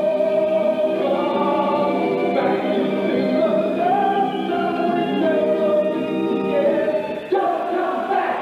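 Stage-musical cast singing together over the show band, holding long sustained chords, with a sudden change in the music about seven seconds in.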